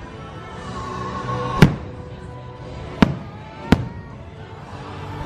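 Aerial fireworks shells bursting: three sharp bangs, the loudest about a second and a half in, then two more close together about three seconds in, over steady background music.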